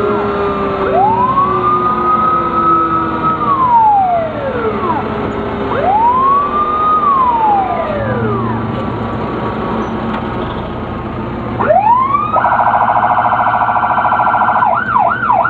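Several emergency-vehicle sirens sounding together in a slow procession: long wails that rise, hold and fall, overlapping one another. About twelve seconds in, a fast warbling yelp starts, with a few quick whoops near the end, over the low running of the vehicles' engines.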